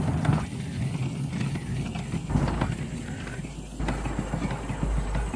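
Small vertical steam engine on a steam speeder running steadily, a quick run of low pulses with a low hum that grows stronger about two seconds in.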